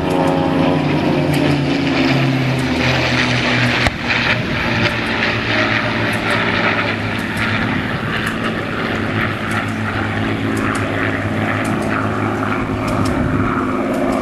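Piston-engined propeller warplanes flying past low: an engine's pitch falls as one passes, then settles into a steady drone. There is one sharp knock about four seconds in.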